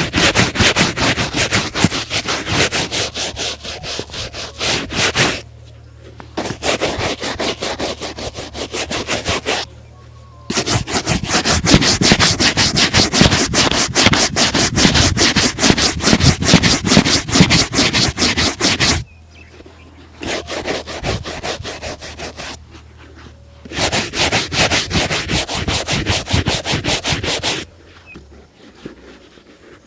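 A shoe being buffed by hand during a shoe shine, with quick back-and-forth rubbing strokes. The strokes come in five bouts separated by short pauses, the longest in the middle.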